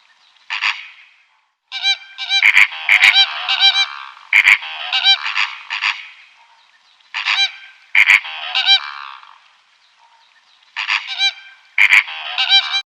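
Geese honking: loud harsh calls in bouts of several quick honks, breaking off abruptly at the end.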